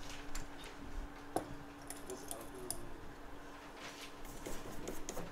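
Light clicks and faint scratching of small hand tools being worked over an iPhone logic board, with a few tiny high ticks about two seconds in, over a steady low hum.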